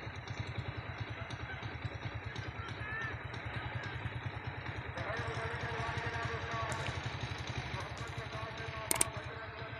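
A small engine running steadily with a low, fast-pulsing rumble, and one sharp click near the end.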